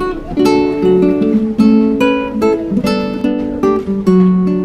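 Background instrumental music of plucked strings, chords and single notes struck several times a second and left to ring.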